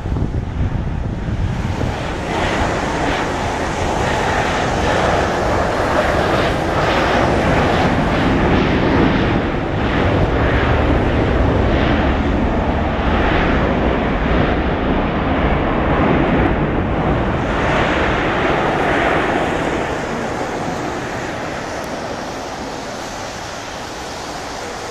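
Boeing 737-800's CFM56 jet engines in reverse thrust during the landing rollout on a wet runway: a loud rushing roar with tyre spray that builds a couple of seconds in and dies away over the last few seconds as the jet slows.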